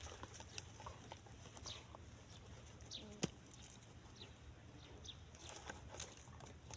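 Faint scattered crackles and ticks of dry twigs as a dog shifts and noses about on them, with a sharper tick about half a second in and another just past three seconds. A few faint, short, high chirps from birds.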